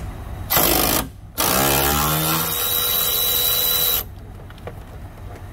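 Power ratchet spinning a 10 mm bolt off a door check. A short burst comes first, then a longer run that speeds up into a steady whine and stops suddenly about four seconds in.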